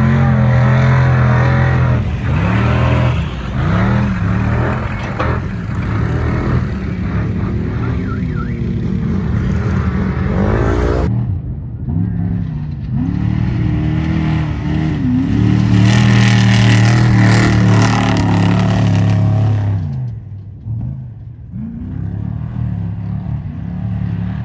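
Trophy truck engines racing by, their revs rising and falling again and again. The sound changes abruptly about eleven seconds in, is loudest a few seconds later, then eases off near the end.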